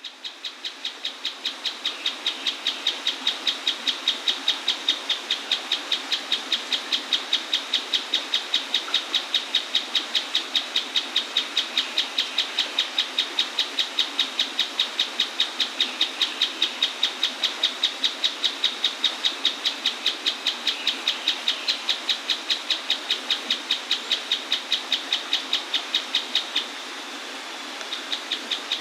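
Mouse-colored tapaculo singing: a long, unbroken string of sharp, high notes repeated evenly several times a second, which breaks off briefly near the end and then starts again. A steady rush of waterfall noise runs beneath.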